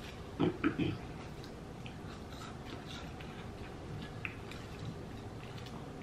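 Chopsticks cutting into a fried vegetable croquette on a plate: three quick taps about half a second in, then faint small clicks.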